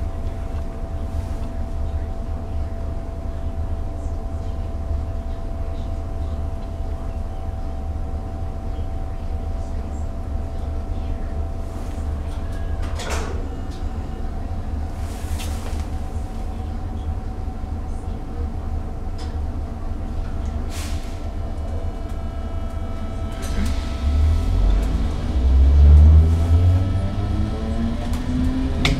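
An 8100 class DART electric multiple unit heard from inside the carriage: a steady low rumble and a faint steady hum, with a few sharp clicks along the way. About 24 seconds in, the traction motors start and a rising whine builds over a heavier rumble as the train gets under way.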